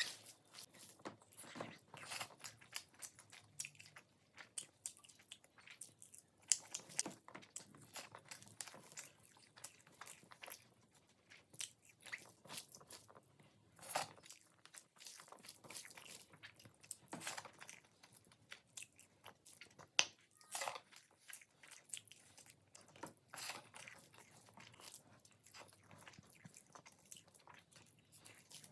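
Close-miked mukbang eating: a person biting and chewing food, with many sharp crunches at irregular intervals.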